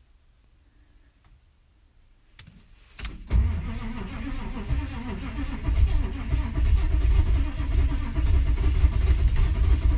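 1988 6.2-litre Detroit Diesel V8 cold-starting at 15 °F. After a click it cranks briefly about three seconds in, catches almost at once and runs on at a loud cold idle.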